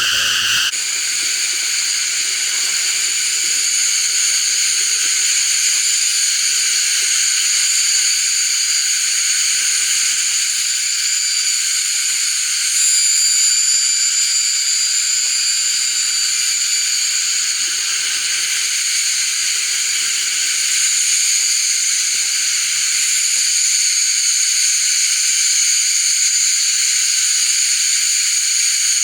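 A loud, steady chorus of forest insects: a continuous high-pitched shrill made of several held tones, which steps up slightly in pitch and loudness about 13 seconds in.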